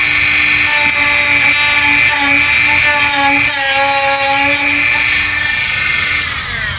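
High-speed handheld rotary tool cutting into a plastic valance, running with a steady high-pitched whine. Its pitch sags slightly as it bites, then it winds down in pitch near the end as it is switched off.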